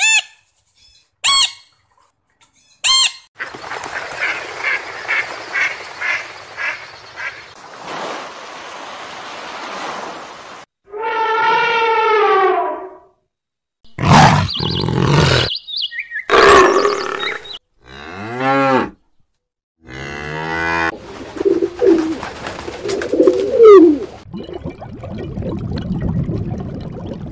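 A quick succession of different animal calls, spliced one after another with abrupt cuts, including pitched farm-animal calls such as a moo or bleat.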